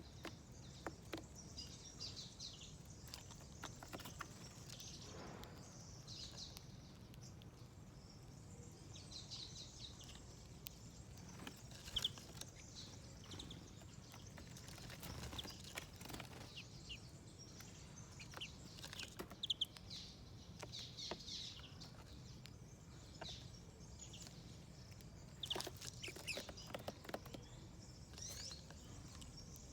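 Small wild birds at a garden feeder giving short high chirps and tweets, scattered irregularly, with a few sharp clicks among them, over a faint steady background rumble.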